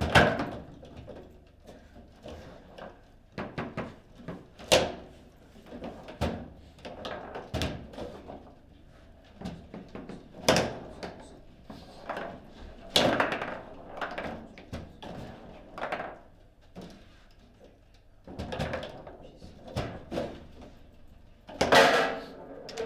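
Table football in play: sharp, irregular knocks and clacks of the ball striking the plastic figures and table walls and of the rods banging against their stops, with a loud knock right at the start and another cluster near the end.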